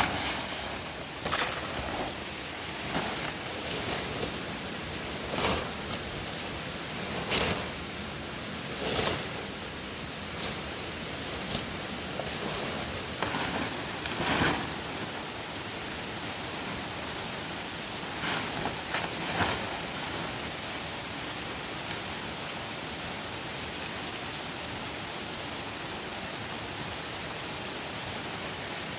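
A series of sharp knocks, roughly one every one to two seconds, then a short cluster a few seconds later before they stop. Under them runs a steady hiss with a thin, high, steady whine.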